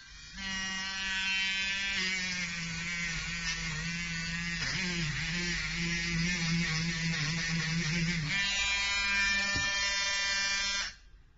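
Handheld electric rotary tool with a wire cup brush starting up and running with a steady whine, then brushing rust off an iron block, its pitch wavering under the load. It runs free again and stops just before the end.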